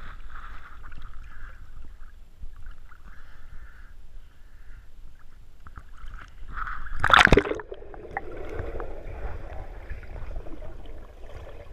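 Lake water lapping and sloshing against an action camera held at the surface. About 7 s in comes one loud splash, after which the sound turns to a muffled underwater gurgle as the camera goes under.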